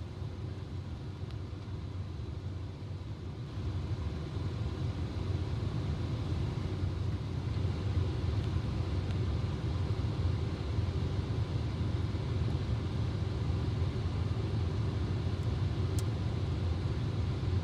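Steady low rumble that gets a little louder about three and a half seconds in, with one faint click near the end.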